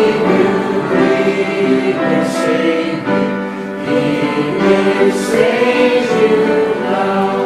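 A group of voices singing a hymn together, in slow phrases with long held notes.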